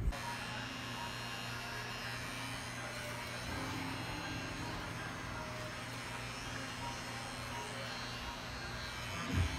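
Pen-style rotary tattoo machine running on skin with a steady electric hum.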